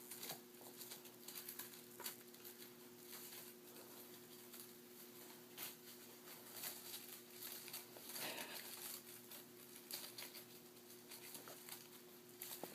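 Foster kittens playing: faint pattering and scattered light clicks and rustles, over a steady low hum.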